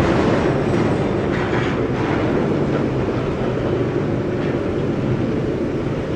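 A ladle refining furnace working on molten steel: a loud, steady, rough industrial noise with no clear rhythm or tone.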